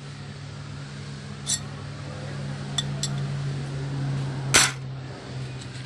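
A steady low hum with a few light metallic clinks, then one loud, short metal clank about four and a half seconds in.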